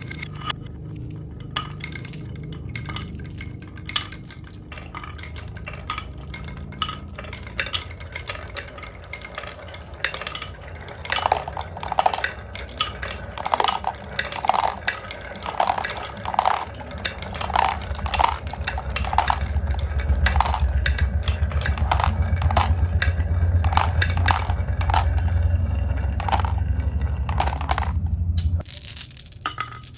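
Marbles rolling and clacking down a wooden HABA marble-run slope: a stream of clicks and ringing knocks over a low rolling rumble that grows louder in the second half and stops abruptly near the end.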